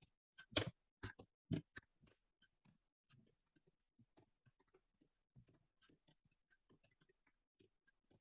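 Computer keyboard being typed on: a few louder keystrokes in the first two seconds, then faint, quick taps.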